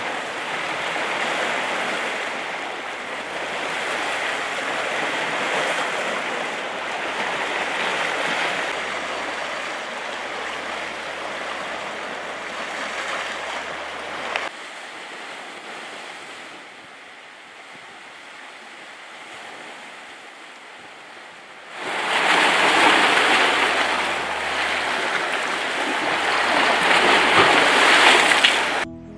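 Sea waves washing against a rocky shore, a steady rushing noise. It turns suddenly quieter about halfway through, then comes back louder and brighter about two-thirds of the way in.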